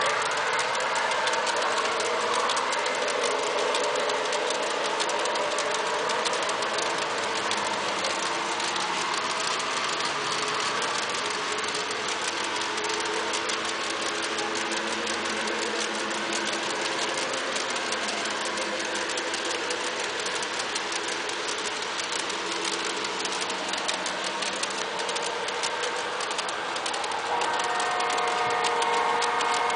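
Large-scale garden-railway model freight train rolling past, its wheels clicking rapidly and steadily over the rail joints with a mechanical whir. Near the end it gets a little louder, and steady tones join in.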